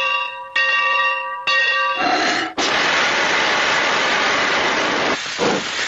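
Steam locomotive departing: its bell rings twice, then a loud steam hiss starts about two and a half seconds in, and near the end it breaks into the first rhythmic chuffs.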